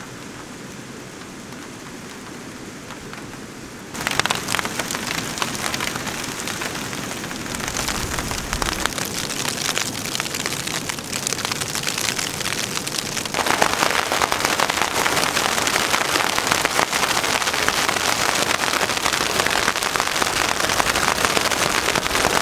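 Heavy shower of snow pellets pattering on tent fabric. A quieter hiss for the first few seconds gives way suddenly, about four seconds in, to a dense, loud patter, which grows louder again about halfway through.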